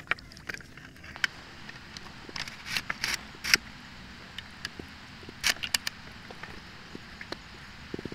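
Water sloshing and scattered sharp clicks and knocks over a steady hiss, made by a spearfisher moving in a river with his mesh catch basket and wooden speargun. The loudest knocks come about three and a half and five and a half seconds in.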